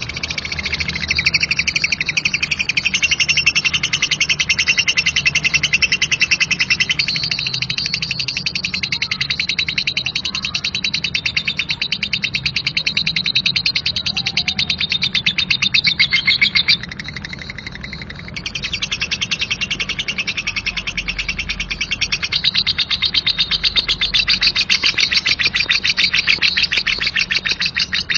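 Lovebird ngekek: a long, rough, very fast chattering trill of rapidly repeated high notes. It breaks off briefly about two-thirds of the way through, then resumes.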